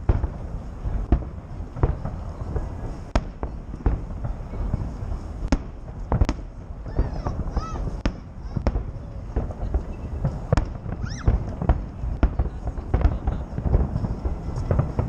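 Festive fireworks salute going off overhead: a rapid, irregular series of sharp bangs and booms over a continuous low rumble.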